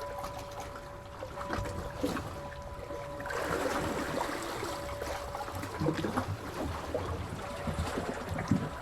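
Seawater lapping and splashing, with small trickles and gurgles and a fuller surge of water about three seconds in. A faint steady hum of two tones runs underneath.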